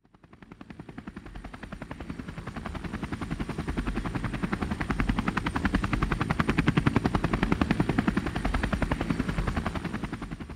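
Helicopter rotor chopping with a fast, even beat, fading in from nothing, growing louder through the middle and easing off near the end before cutting off.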